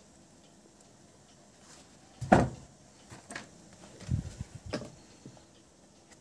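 Knocks and clunks of shoes and tools being handled at a shoe-repair workbench: one sharp knock a little over two seconds in, then a short run of softer thuds about four seconds in.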